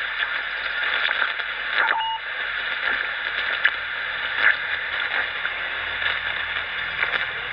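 CB transceiver's speaker putting out AM band static, a steady hiss with scattered crackles, shifting as the channel selector steps from channel to channel. A short tone sounds about two seconds in.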